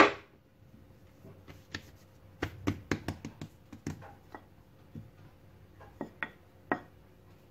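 Short clicks and taps of a wooden rolling pin and hands on a worktop: one sharp knock at the start, a quick run of taps about two to four seconds in, and three more near the end.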